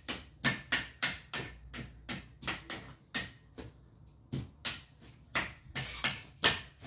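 A trolley suitcase being slapped with a cloth over and over, about three or four sharp slaps a second in an uneven rhythm.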